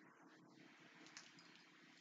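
Near silence: faint, even background hiss.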